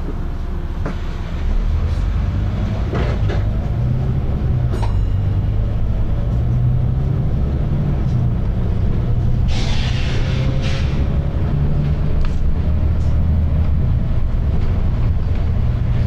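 Volvo B9TL double-decker bus's six-cylinder diesel engine heard from inside the bus, picking up load about a second and a half in and pulling with a slowly rising pitch. A short hiss of air cuts in about ten seconds in.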